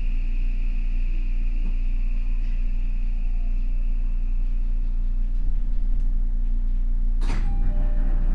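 Odakyu 5000 series (second generation) electric train running, heard from inside the car: a steady low rumble of wheels on rail, with a faint high whine that fades away. About seven seconds in there is one sudden sharp burst of noise.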